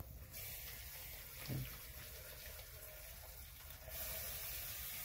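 Tap water running from a sink faucet into a plastic cup through its mesh screen lid, filling the cup. The flow starts about a third of a second in and grows a little louder about four seconds in.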